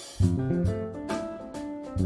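Small jazz combo of piano, electric guitar, bass and drum kit playing together. The full band comes in about a quarter second in, with a walking bass line and drums.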